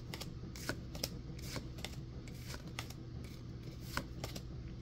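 Pokémon trading cards being flipped through one by one in the hands, each card slid from the back of the stack to the front with a short soft flick, irregularly about two or three a second, over a low steady hum.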